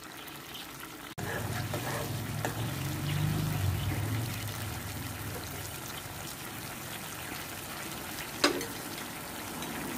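Fish-sauce and sugar sauce bubbling and sizzling as it simmers and reduces in a frying pan, over a steady low hum. It grows louder about a second in, and there is a single sharp tick near the end.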